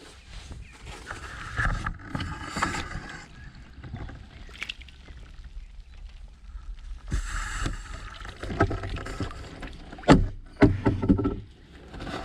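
Water splashing and sloshing in irregular bursts, with a couple of sharp knocks about ten seconds in.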